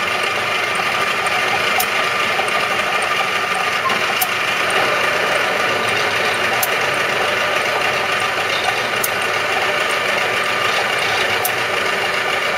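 Union BFT125/5 horizontal boring machine running under power, its facing head rotating while the facing slide feeds outward: a steady mechanical gear-drive drone with a faint sharp tick about every two and a half seconds.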